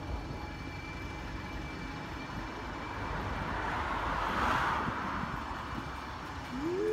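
Street ambience with a passing vehicle: an even rushing noise swells to its loudest about four to five seconds in, then fades.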